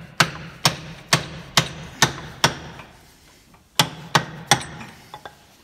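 Hammer handle tapping the metal plug of a Leyland tractor's high-pressure filter housing up into place: six sharp taps about two a second, a pause, then three more and a couple of faint ones near the end.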